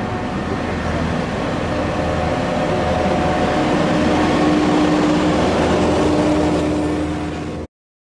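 Diesel engine of a double-drum asphalt roller running steadily as the roller drives by, getting louder as it comes near. It cuts off abruptly near the end.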